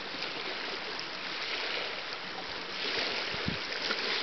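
Small waves lapping and washing on a pebble shore: a steady hiss of water, growing a little brighter past the halfway point.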